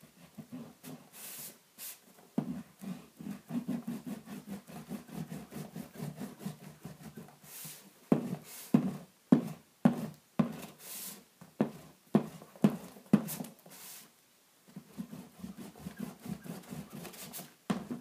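Glue stick rubbed rapidly back and forth over a sheet of paper lying on cardboard, a fast scrubbing, with several sharper knocks in the middle stretch.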